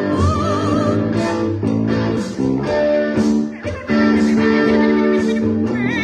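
Electric guitars playing a rock riff, with a yellow-headed Amazon parrot singing along in two short wavering phrases, one just after the start and one at the end.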